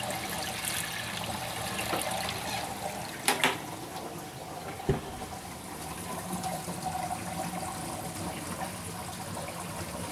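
Water running and splashing steadily in a reef aquarium system, a continuous even hiss of moving water. A short double knock sounds about three seconds in and a single click about five seconds in.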